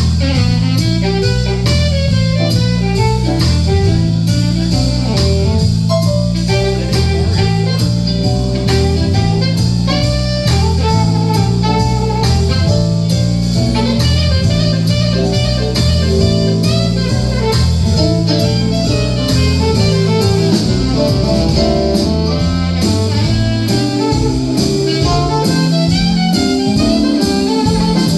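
Live band playing an instrumental jazz-blues passage: guitar over a stepping bass line and drum kit.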